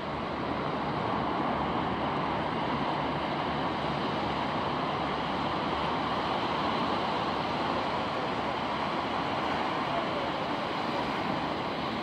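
Steady rush of ocean surf breaking and washing up the beach, with wind.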